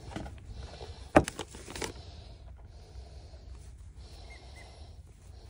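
Hands kneading bread dough for pizza on a floured wooden cutting board, with a few sharp knocks a little over a second in, then quieter pressing and folding.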